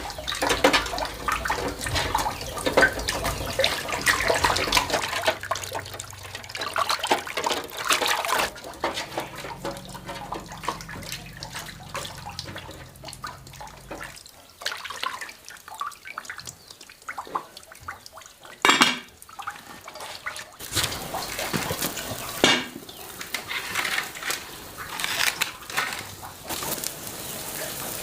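Water running and splashing, with many small knocks and clinks, as in washing something.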